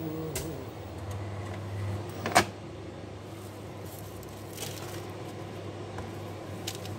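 Autec sushi rice sheet machine running with a low hum while it presses out a sheet of rice, then a single sharp clack about two and a half seconds in. Light clicks from handling the tray follow.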